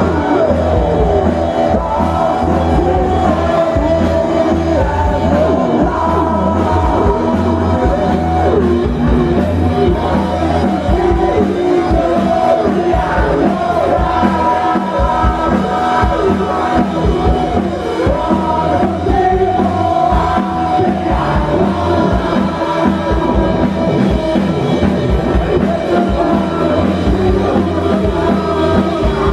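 Live rock band playing loud on electric guitar, bass and drums, with voices singing and shouting over it and crowd noise from a packed stage.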